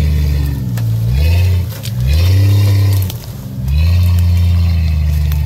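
Off-road vehicle's engine revving up and down over and over as it works through muddy ruts. Its pitch falls and climbs again about three times, easing off briefly near 2 and 3 seconds in.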